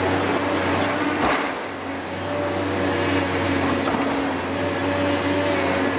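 Hitachi Zaxis 470 hydraulic excavator's Isuzu six-cylinder diesel running steadily with a low hum and a higher level tone over it, and a single knock about a second in.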